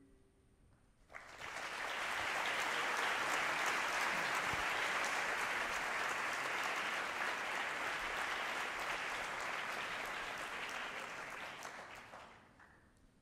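Audience applauding, beginning abruptly about a second in, holding steady, and dying away near the end.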